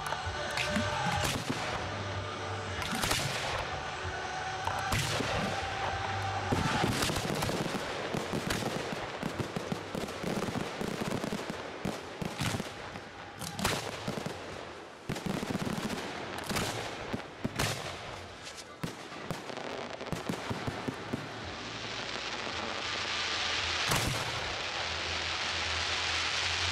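Fireworks display: aerial shells bursting one after another, sharp bangs at uneven intervals throughout. Show music plays faintly under the bangs in the first few seconds, and a dense hiss builds about 22 seconds in.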